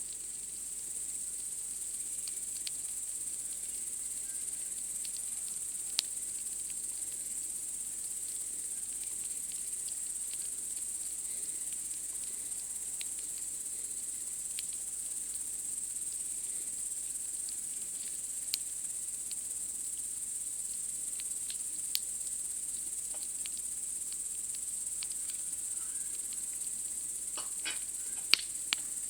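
Steady high chirring of night insects, with a campfire's wood crackling in a few sharp pops, the loudest two close together near the end.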